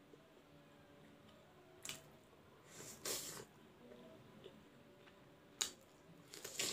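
Soft wet squishing of fingers mixing and squeezing rice with sauce, in a few short bursts, the loudest about three seconds in, with a sharp click a little past halfway. Near the end comes a wet mouth sound as a handful of food is taken into the mouth.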